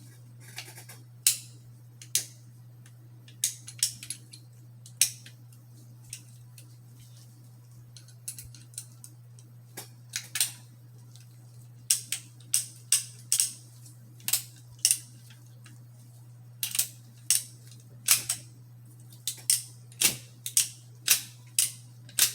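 Irregular sharp metallic clicks and taps from handling a single-action .45 Colt revolver during cleaning, some coming in quick runs of several, over a steady low hum.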